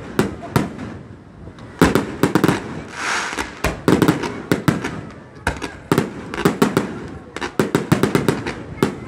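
Fireworks display: aerial shells and ground fountains going off in a rapid series of sharp bangs that come in dense clusters, with a brief hissing rush about three seconds in.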